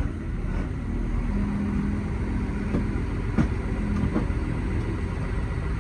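Large bus's diesel engine idling while it warms up: a steady low rumble with an even hum. A few light clicks come in the middle.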